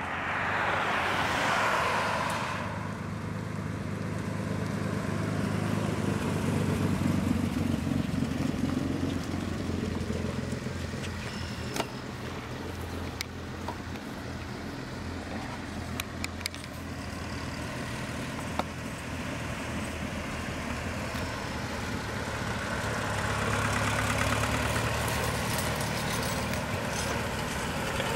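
Engines of antique farm tractors and other vehicles running as they pass along the road, swelling twice as they come by, about a quarter of the way in and again near the end. A few sharp clicks in the middle.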